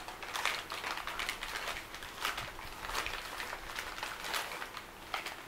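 Old dry newspaper crinkling and rustling as it is unwrapped by hand from a small glass, in quick irregular crackles.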